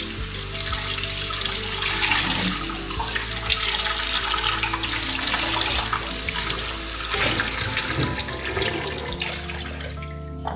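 Water running from a tap into a sink in a steady rush that stops near the end. Soft background music plays underneath.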